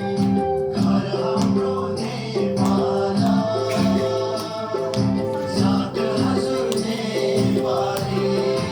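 Background music: a song with singing over a steady repeating accompaniment.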